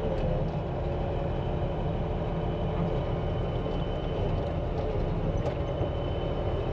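Loader engine running steadily, heard from inside the cab, as the raised bucket of silage is slowly tipped into a feed mixer; a faint steady high tone runs through it.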